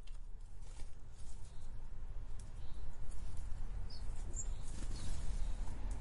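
House sparrows at a seed dish: light taps and wing flutters, with a few short high chirps around the middle, over a steady low rumble.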